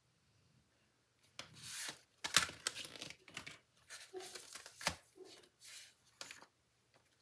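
Plastic packaging sleeve and paper card rustling and crinkling as a die set is unpacked by hand, a run of short rustles starting about a second in, with sharp crackles around the middle.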